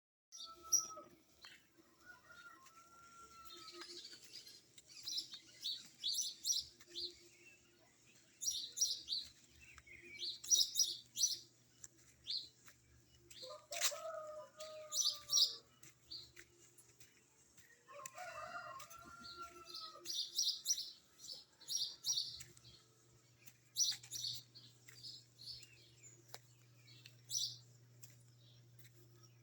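Small birds chirping over and over in quick clusters of short high notes, with a few longer, lower curved calls, one about a second in, others around the middle. A faint steady low hum runs underneath.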